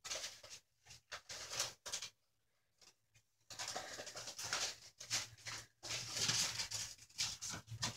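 Faint rustling and crinkling of shredded paper bedding as pet rats drag it through their wire cage, in short irregular bouts, with a pause of about a second and a half starting about two seconds in.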